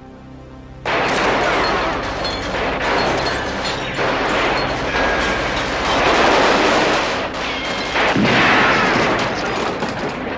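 Sustained automatic gunfire from a film soundtrack, rapid shots running together, starting about a second in over a low held musical tone.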